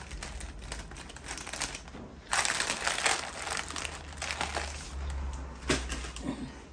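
Packaging crinkling and rustling as it is handled, loudest for about a second a little over two seconds in.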